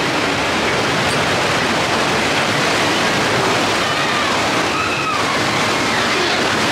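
Loud, steady rush of water.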